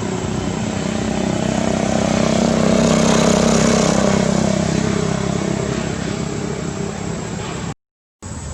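A motor vehicle passing by: its engine hum grows louder, peaks about three seconds in and fades away. Near the end the sound cuts out completely for a moment.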